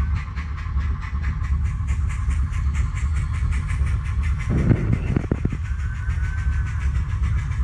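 Model steam locomotive's onboard sound chuffing quickly and evenly, about six chuffs a second, over the low rumble of model train wheels on track passing right by the microphone. There is a short clatter a little past halfway.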